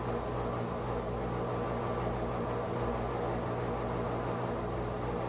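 Case 580 Super M backhoe's diesel engine running steadily at idle, an even hum.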